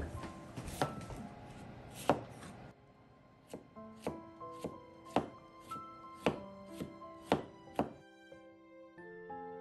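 Kitchen knife cutting a carrot on a wooden cutting board: a few slicing strokes first, then steady chopping, about two knocks a second, as the carrot is cut into thin strips. Soft background music plays throughout.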